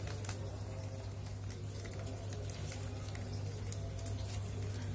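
Plastic fish bag being handled, with faint scattered crinkles and clicks over a steady low hum.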